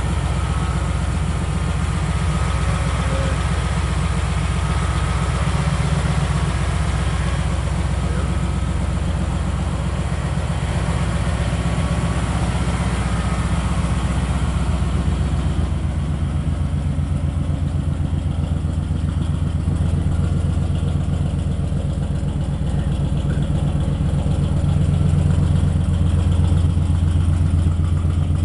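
A 1969 Chevy pickup's V8 engine idling steadily after being started by a remote automatic starter.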